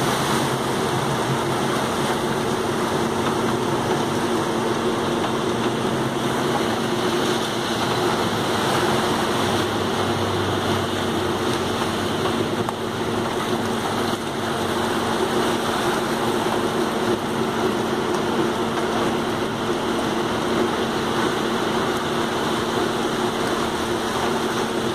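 A vehicle engine humming steadily under a constant wash of rain and moving floodwater, heard from inside the vehicle.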